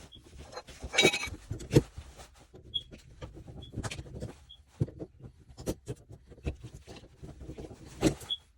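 Hand work on a shower valve: irregular clicks, knocks and rubbing of metal and plastic parts being handled, the loudest about a second in and near the end, with short high squeaks now and then.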